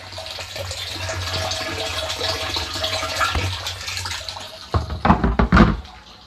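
Water from a jet pump pouring steadily into a plastic household water tank, filling it. A few loud knocks come near the end as the tank's plastic lid is handled.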